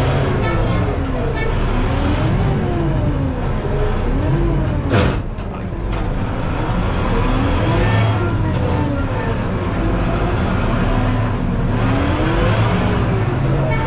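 Arbos tractor engine working under load while pulling a plough, heard from inside the cab: a steady low drone with a whine that repeatedly rises and falls in pitch. A single sharp knock about five seconds in.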